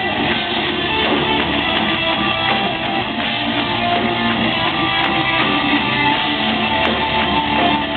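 Live metal band playing loud, with distorted electric guitars and drums to the fore and no vocals, heard through a low-quality recording that has lost its highs.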